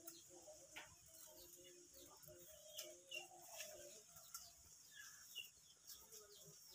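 Faint background of birds chirping, with scattered light clicks.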